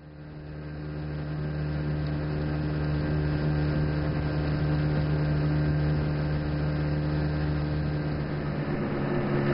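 Outboard motor driving a small open boat under way: a steady engine hum over the rush of water along the hull. It fades in over the first two seconds.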